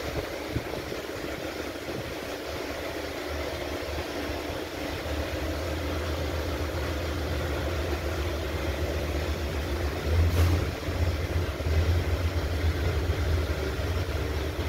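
Steady low mechanical hum, growing a little stronger about five seconds in, with uneven louder low rumbling from about ten seconds on.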